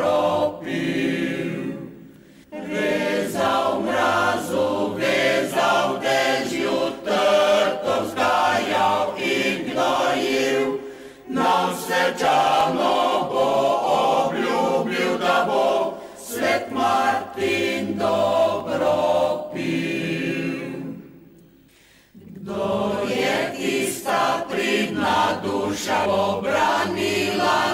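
Mixed choir of men's and women's voices singing a Slovenian song a cappella, with two short breaths between phrases, about two seconds in and again near twenty-one seconds.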